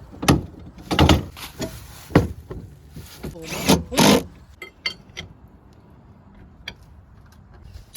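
Irregular knocks and scrapes of hand tools on the combine corn head's bent sheet-metal snout pieces as they are worked back into shape. About five sharp knocks in the first half, then fainter clicks.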